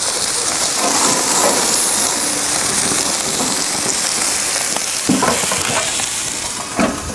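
Steak and vegetables sizzling steadily on the hot plate of a Broil King Porta Chef portable gas grill, with two knocks near the end as the lid is brought down.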